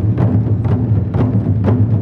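Traditional Taiwanese gong-and-drum ensemble playing: a steady low rumble of drums with sharp accented strikes about twice a second.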